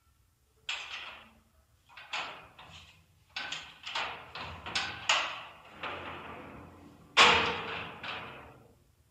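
A series of sudden knocks and clunks, each ringing out and fading with room echo. The loudest comes about seven seconds in.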